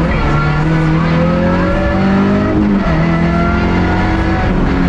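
Rally car engine heard from inside the cabin, accelerating hard through the gears: its pitch climbs, drops at an upshift about two and a half seconds in, climbs again and drops at another upshift near the end.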